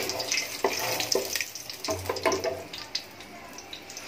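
Whole spices (bay leaves, cinnamon sticks and cardamom) sizzling in hot oil in a pot, a steady hiss with scattered clicks and knocks.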